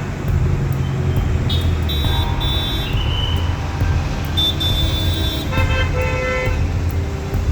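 Road traffic stuck in a jam: a steady rumble of idling vehicle engines, with car horns honking several times, some blasts overlapping.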